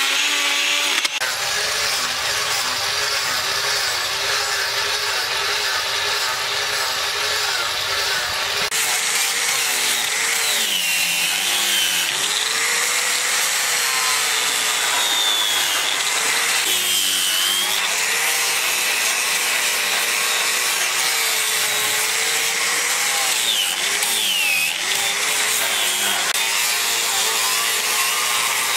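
Angle grinder with a disc grinding the wooden block, its motor tone dipping and recovering again and again as it is pressed into the wood. The first second is a rotary burr tool cutting the wood.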